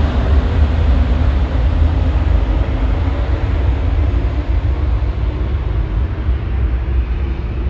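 Jet airliner engine noise: a loud, steady rumble with a hiss on top that slowly fades.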